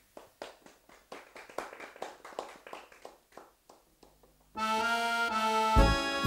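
A few people clapping, then about four and a half seconds in an electronic keyboard strikes up a folk-song tune in an accordion-like voice, with a thumping bass beat joining about a second later.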